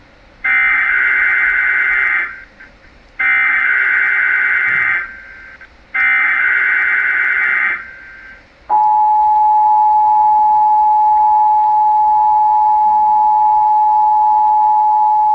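Emergency Alert System Required Monthly Test: three bursts of SAME digital header data, each about two seconds long with a short gap between them. About nine seconds in, the steady two-tone attention signal starts and holds.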